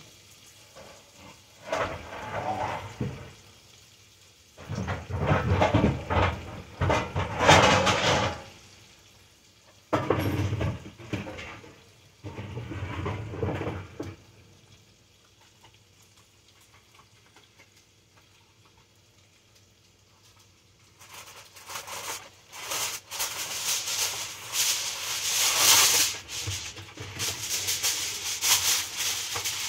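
Kitchen handling sounds off camera: irregular bursts of clattering and knocking, a quiet stretch in the middle, then denser rattling and rustling near the end.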